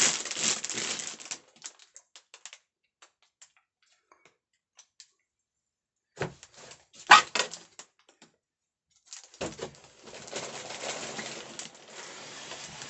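Clear plastic bags of Lego pieces crinkling and rustling as they are handled, with the bricks inside clicking against each other. There is a quiet pause, then a short burst of crackling and clicks about halfway through, and steady crinkling again near the end.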